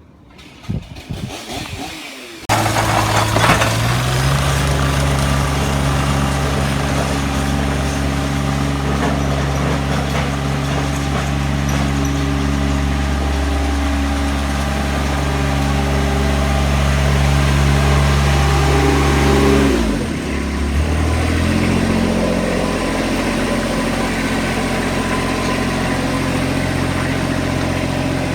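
A large engine running steadily, starting abruptly about two and a half seconds in, shifting speed a couple of times and dropping to a lower steady speed about twenty seconds in.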